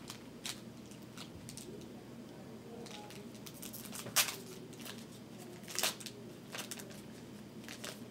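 A snack wrapper crinkling and tearing as it is opened by hand, in short irregular crackles, the loudest about four seconds in and again near six seconds.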